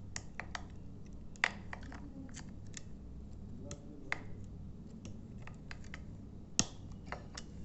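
Irregular small clicks and taps of a screwdriver working at a screw on a steel door hanger, with a few sharper clicks among them; the screw is too tight to turn.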